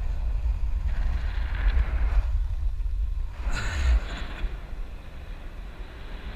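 Wind buffeting a camera microphone in flight under a parasail: a loud, uneven low rumble with hiss that swells twice, easing off after about four seconds.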